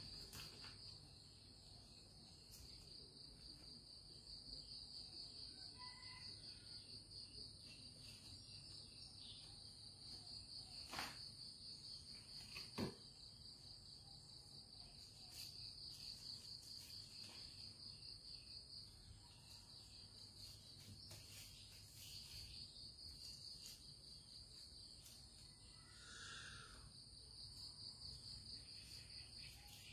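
Faint, steady, high-pitched insect chirring, with two soft taps about eleven and thirteen seconds in, the second the louder.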